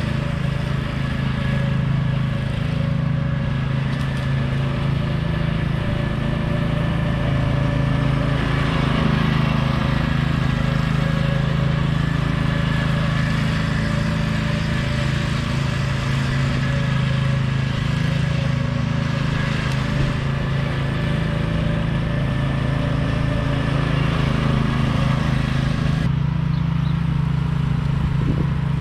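Troy-Bilt TB30R riding lawn mower's engine running steadily under load while mowing, a constant hum with no break.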